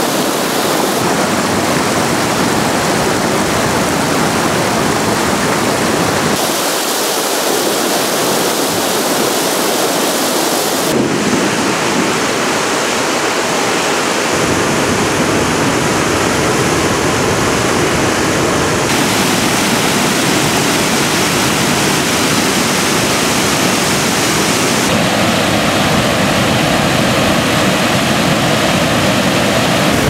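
Waterfalls and whitewater cascades rushing over granite boulders, a loud steady rush of falling water. Its tone changes abruptly every few seconds as one fall gives way to another.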